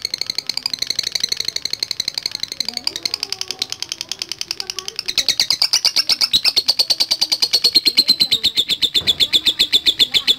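Lovebird giving a long, unbroken 'ngekek' chatter: a fast, even run of sharp high chirps, about ten a second, getting louder from about halfway through.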